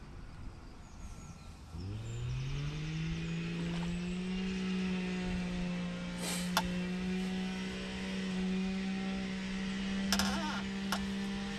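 A strimmer engine ticking over, then revving up about two seconds in and holding a steady whine at full throttle. A few short sharp clicks sound near the middle and near the end.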